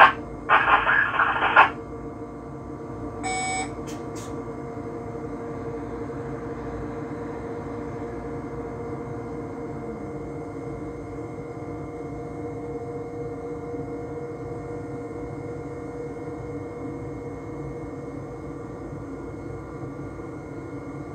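Steady hum of an electric train heard from inside its driver's cab, with several fixed tones running through it. A brief crackly burst of radio voice comes through in the first second and a half, and a short electronic beep sounds about three seconds in.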